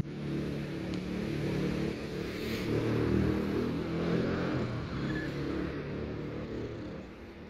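Low engine rumble of road traffic, swelling about two to four seconds in and fading near the end.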